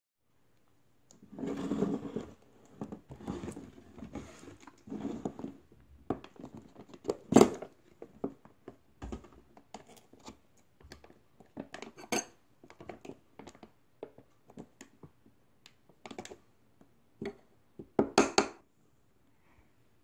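Dishes and cooking utensils clinking and knocking in scattered separate hits, with the loudest about seven seconds in and a quick cluster of clatters near the end.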